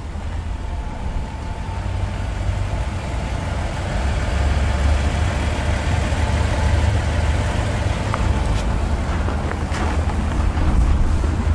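Wind buffeting the microphone: a low rumble that grows gradually louder.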